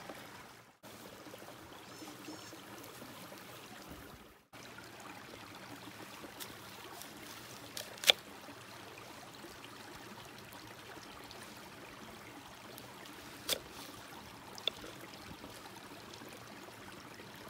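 Mountain stream running steadily over rocks, with a few sharp clicks about eight seconds in and again near the end. The sound cuts out briefly twice early on.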